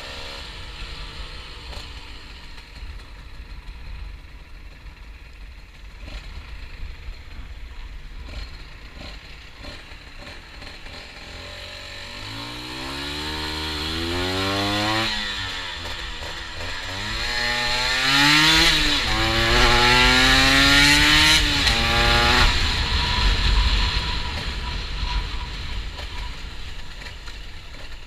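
Honda NSR 125's two-stroke single-cylinder engine, heard from on board the bike. After quieter running, it accelerates hard through several gears, its pitch climbing and dropping back at each shift. The throttle then closes and it falls back to quieter running near the end.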